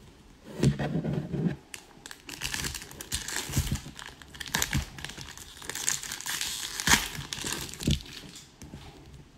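Foil wrapper of an Upper Deck hockey card pack being torn open and crinkled as the cards are slid out. A few sharp clicks come through the crinkling.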